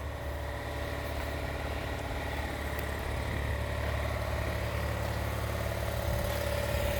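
A motor or engine running steadily at idle: a low rumble with a faint steady whine above it, growing slightly louder over the seconds.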